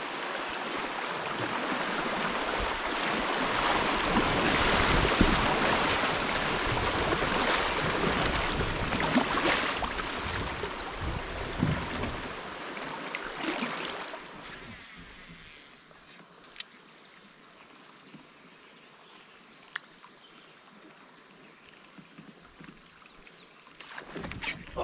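Shallow river riffle rushing and splashing around a kayak being paddled through it. The rushing swells over the first few seconds, then fades out about halfway through as the kayak drifts into still water, leaving only a few faint clicks.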